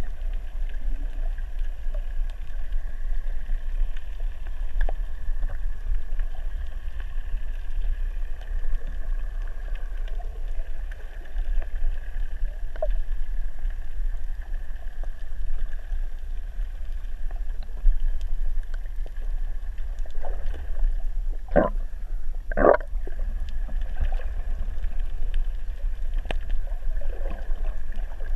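Underwater ambience picked up by a camera in a waterproof housing: a steady low rumble with a faint steady hum above it and scattered small clicks. A little over two-thirds through come two short, louder sounds about a second apart.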